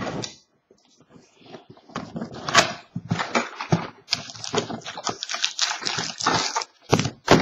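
Handling of a cardboard trading-card box and the cards inside: a short rustle at the start, then from about two seconds in a steady run of crackly rustling, scraping and clicking as the cards are pulled out through the box's window.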